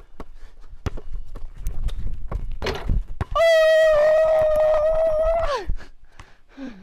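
Thuds of a basketball and quick footsteps on asphalt during a run-up and dunk attempt. Then a man's long, loud yell of frustration, held for about two seconds and falling in pitch at the end.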